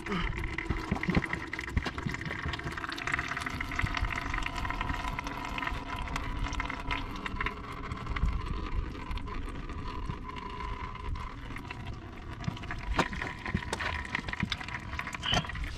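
Engine oil trickling in a thin, steady stream from the loosened oil filter of a 7.3 IDI diesel into a bucket, with a few faint clicks near the end.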